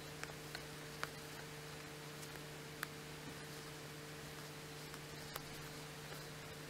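Faint steady electrical hum, with a few faint scattered clicks from a needle and cotton fabric being handled in hand sewing a running stitch.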